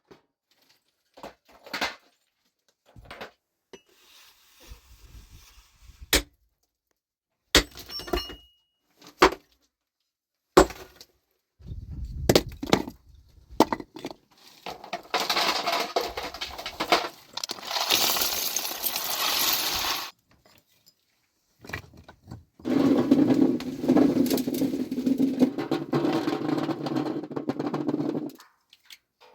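Stone being struck and broken: a string of separate sharp strikes and cracks with dead silence between them, then two longer stretches of dense noise of about five seconds each.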